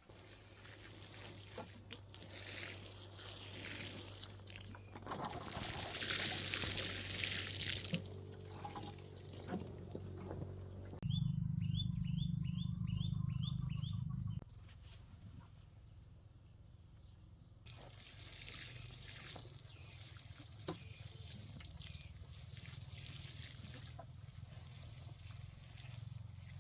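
Water running and splashing, as from a tap or hose, in two long stretches. In between, a few seconds of steady low hum with a quick run of about seven short high chirps.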